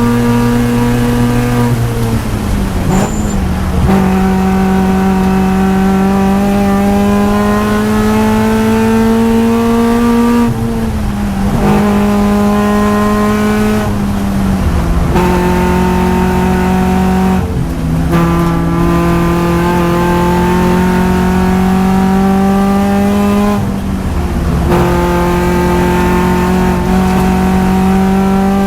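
2013 Subaru BRZ's flat-four engine running hard on track, the revs climbing steadily through long pulls. Several times the pitch falls away briefly as the driver lifts or shifts, then it climbs again.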